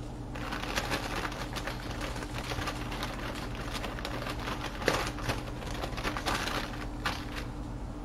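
Clear plastic bag crinkling and rustling as hands rummage inside it, a dense run of small crackles with a sharper crackle about five seconds in. A steady low hum runs underneath.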